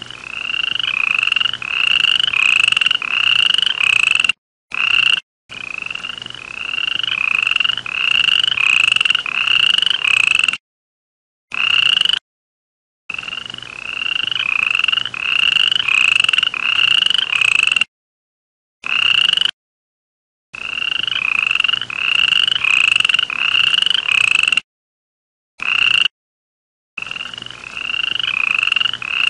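Frog or toad calling: a run of short, slightly rising chirping notes, about three every two seconds, in bouts of several seconds that break off abruptly into silence several times.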